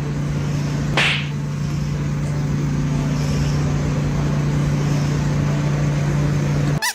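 A steady low mechanical hum with a short hiss about a second in. It cuts off just before the end.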